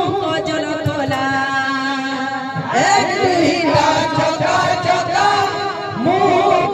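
Ladies' kirtan singing, a devotional song sung into a microphone and amplified, with musical accompaniment. A loud new sung phrase comes in about three seconds in.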